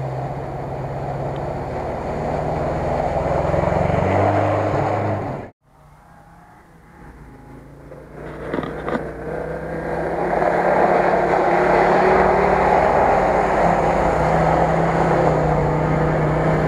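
Off-road SUV engine running hard as it drives through shallow water, its note rising about four seconds in before cutting off abruptly a little after five seconds. After a quieter stretch, a 4x4 engine runs loud and steady again from about ten seconds on.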